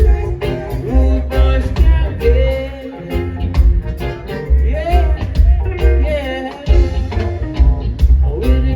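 Live reggae band playing: a heavy pulsing bass line under regular short off-beat strokes and a rising and falling melody line.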